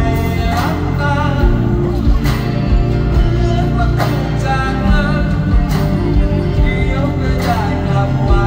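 Live band music through a stage PA: a man singing a slow pop-rock song over strummed acoustic guitar, bass and drums, with a regular accent about every second and a half.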